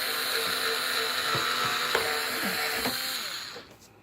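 Small electric drill running steadily while boring a headlamp hole through a thin plastic RC car body, with a few small clicks. It winds down and stops about three and a half seconds in.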